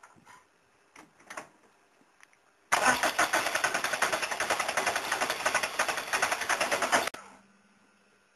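Rebuilt Peugeot XUD9 turbo-diesel engine turning over hard for about four and a half seconds on its first start attempt after the rebuild, then stopping suddenly. The loud burst starts abruptly near the three-second mark with a fast, even pulsing.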